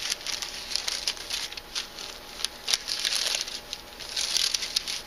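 Thin Bible pages rustling and crinkling as they are leafed through, a run of short crackly rustles.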